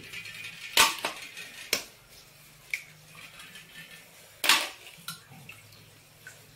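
Eggs cracked one after another against the rim of a stainless steel bowl: several sharp taps of shell on metal, with faint clinks of the steel bowls between them.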